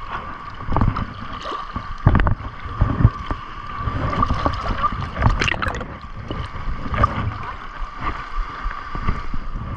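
Shallow seawater sloshing and gurgling around a camera held at the waterline, with irregular low splashes and a steady thin high tone underneath.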